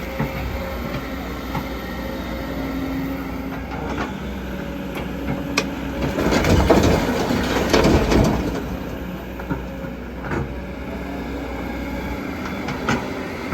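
Heavy diesel machinery running steadily with a low rumble and scattered clanks, growing louder and rougher for a couple of seconds near the middle.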